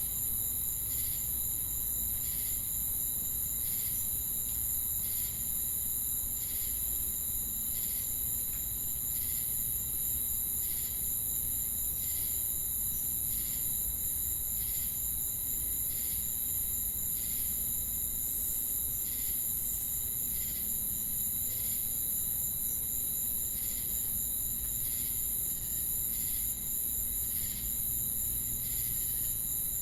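Crickets and cicadas chorusing: a steady, very high-pitched insect drone with a constant shrill tone, and over it a regular chirp repeating about three times every two seconds.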